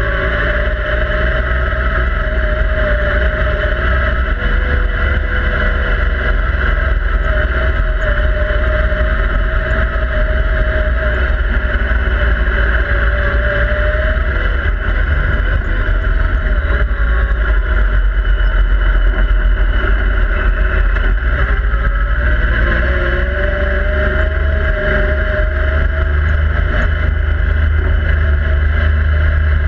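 Yamaha YXZ1000R side-by-side's three-cylinder engine running under way on a dirt trail, heard from inside the cab. Its pitch holds for long stretches, dips a few seconds in and climbs again about two-thirds of the way through, over a heavy low rumble from the rough ground and wind.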